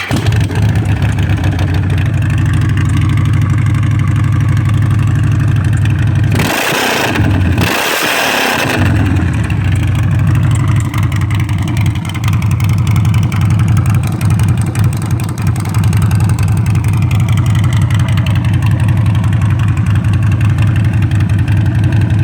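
2014 Harley-Davidson Road King's V-twin engine idling loudly through a Squeeks Big Twin 2-into-1 short exhaust. About six to nine seconds in, it is revved twice in quick succession, then it settles back to a steady idle.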